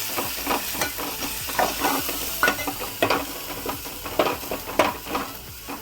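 A spoon scraping and stirring a spice paste as it fries in hot oil in a pot, in irregular strokes over a steady sizzle.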